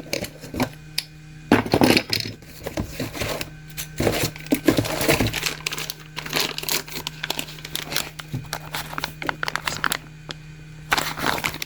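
Irregular clicks, knocks and clatter of a chainsaw and its parts being handled, over a steady low hum.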